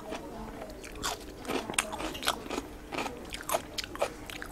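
Eating sounds of rice and curry eaten by hand: irregular crunchy clicks and smacks, several a second.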